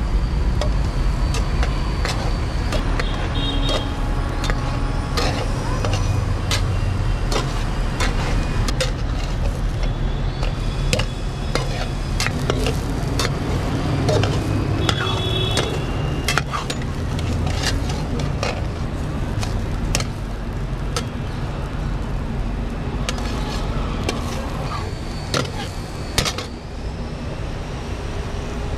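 Metal spatula scraping and clinking against a metal frying pan as a bread omelette is turned, with many short sharp clicks. Under it runs a steady rumble of road traffic.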